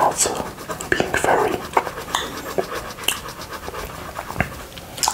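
Close-miked tongue licking honey off a glass plate: wet licking and smacking mouth sounds with many irregular short clicks.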